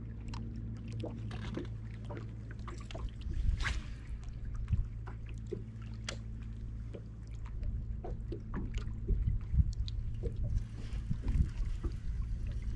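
Bow-mounted electric trolling motor humming steadily while the boat creeps along, with scattered small clicks and knocks from tackle and the boat's deck, the loudest knock about four seconds in.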